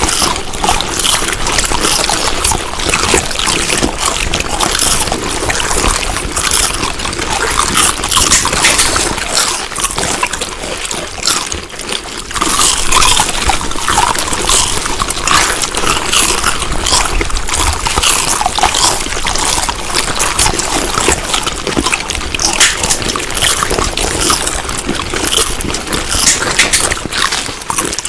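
Close-miked chewing of food: a dense, continuous run of small clicks, briefly easing about twelve seconds in before picking up again.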